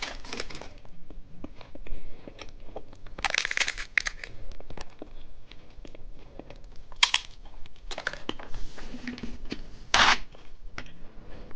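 Candy wrapper crinkling and tearing as a foil-wrapped umbrella chocolate is unwrapped, with many small clicks and crackles. There are short louder bursts of rustling about three and a half, seven and ten seconds in.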